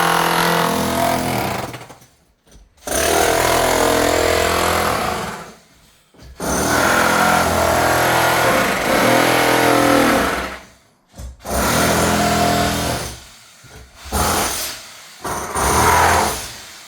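A power tool run in several bursts of a few seconds each, with short pauses between.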